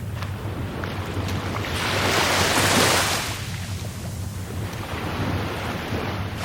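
Rough sea surf: a wave breaks and washes in with a loud surge about two to three seconds in, and a smaller surge comes near the end, over a steady low rumble.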